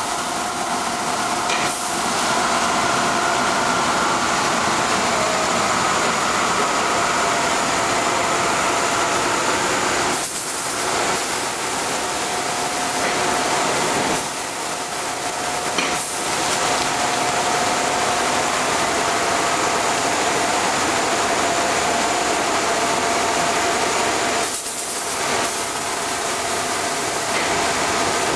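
Plastic blown-film extrusion machine running: a steady hiss with several steady whining tones held over it, dipping briefly three times.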